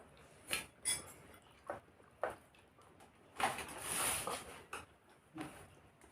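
Cutlery clinking and scraping on a plate during a meal: a handful of short clinks and a longer scraping stretch about three and a half seconds in.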